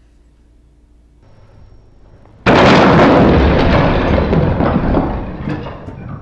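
A loud explosion that starts suddenly about two and a half seconds in, with a deep low end, and dies away over the next few seconds.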